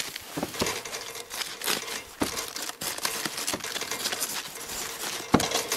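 Head of green cabbage handled and cut with a chef's knife on a plastic cutting board: leaves crinkling and tearing in irregular crackles, with a louder knock near the end.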